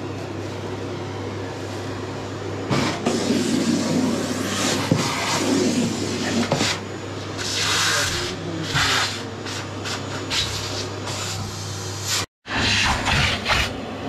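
Canister vacuum cleaner running, its nozzle worked over firewood logs to clean them, the sucking and scraping rising and falling from about three seconds in. The sound breaks off briefly near the end.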